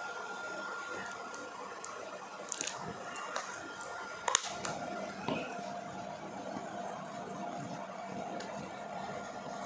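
Soft rubbing and patting of fingers spreading moisturizer cream over the face, with a few small clicks and rustles over a faint steady hum.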